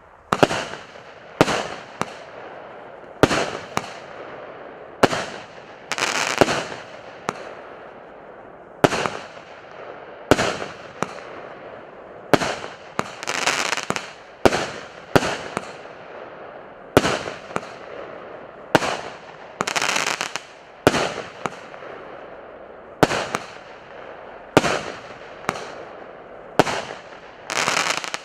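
PC620 'Радость общения' multi-shot firework going off shot after shot: a sharp bang about every second, sometimes two in quick succession. Each bang trails off in a hissing crackle, and a few crackles last longer.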